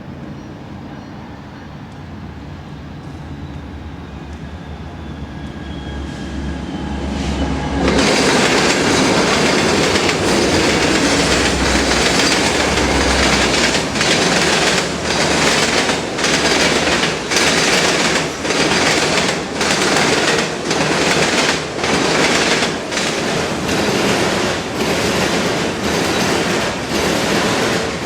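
A freight train approaching and passing close by. A diesel locomotive rumble builds for several seconds, then about eight seconds in the loud rolling noise of the cars takes over, with a steady rhythmic clickety-clack of wheels over the rail joints.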